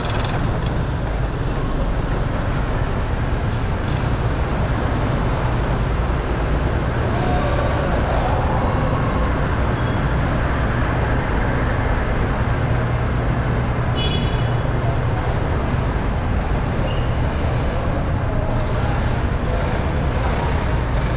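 Steady engine noise of motor scooters riding slowly up a ferry's ramp and onto its vehicle deck, with a low, even hum underneath. A brief high beep sounds about two-thirds of the way through.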